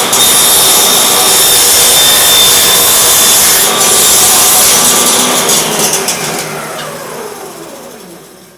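Table saw cutting through wood on an angle-cutting sled, loud and steady, then the blade winding down with a falling whine over the last couple of seconds.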